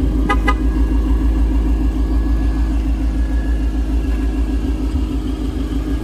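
Ford Mustang Shelby GT350's 5.2-litre flat-plane-crank V8 idling steadily, an even low rumble with a regular pulse.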